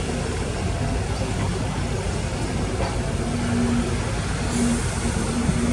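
Heavy diesel earthmoving machinery running steadily, with a low hum that comes and goes in the second half.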